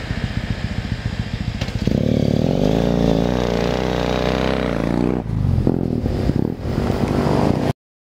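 2005 Triumph T100 parallel-twin with Keihin CR Special carburettors and a race exhaust, idling, then revved hard about two seconds in and held high while the rear tyre spins on grass. The revs dip briefly a couple of times before the sound cuts off abruptly near the end.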